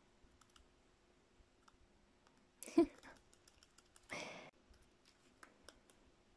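Faint scattered clicks and scratches on paper as a pencil writes and a budgerigar walks across the notebook page, with two short breathy exhalations from a person about three and four seconds in.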